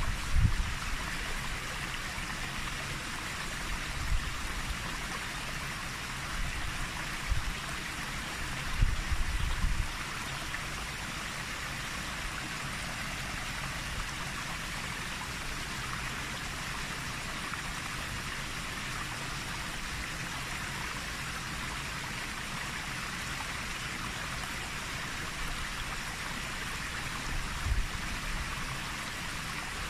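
Steady hiss of lake water lapping at the shore. Wind gusts rumble on the microphone several times in the first ten seconds and once near the end.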